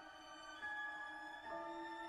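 Background music: held notes on strings, changing twice.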